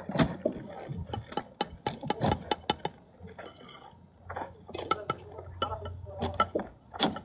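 Scattered sharp clicks and light clinks, with brief low voices now and then.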